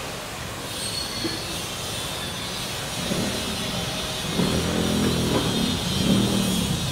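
Water poured into a hot pan of toasted siopao cooking in oil hisses and sizzles with steam. From about four seconds in, a passing vehicle's engine hum rises over it and becomes the loudest sound.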